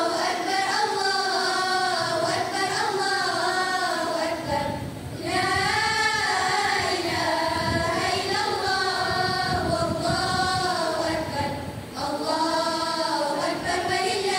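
A group of schoolgirls voicing a choral-speaking piece together in unison, in long melodic, sung phrases. The group pauses briefly for breath about five seconds in and again about twelve seconds in.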